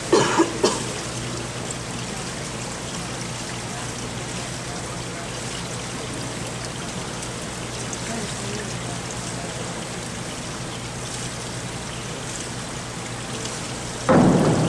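Steady rushing hiss of diving-pool water. About fourteen seconds in comes a sudden loud splash as a diver enters the water, and the churning carries on.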